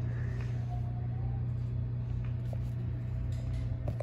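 A steady low hum with a rumble beneath it, and a couple of faint clicks.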